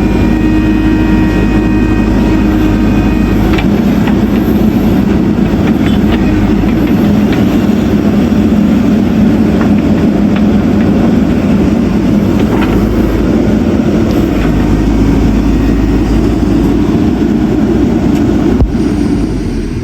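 Heavy diesel earthmoving machinery running loud and steady, with a few faint metallic clicks. The sound changes abruptly about a second before the end.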